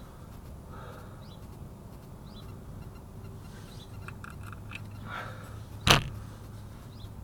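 One sharp knock about six seconds in, over a low steady background with a few faint high chirps.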